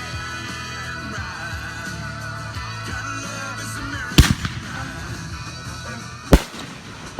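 Two sharp firework bangs about two seconds apart, the first about four seconds in, over background music with singing.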